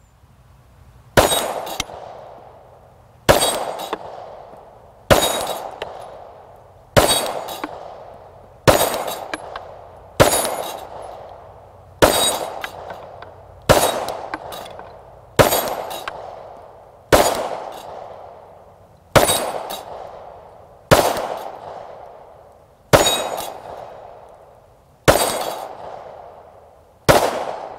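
Glock 19X 9mm pistol fired fifteen times in slow, evenly paced shots about two seconds apart, firing 115-grain ball ammunition. Each shot is followed by a ringing clang as the AR-500 steel flapper target is struck.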